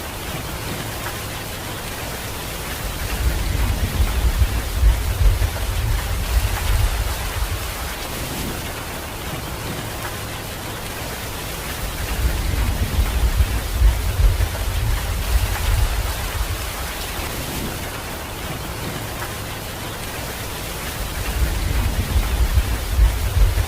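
Heavy rain falling steadily, with low rolls of thunder rumbling up three times.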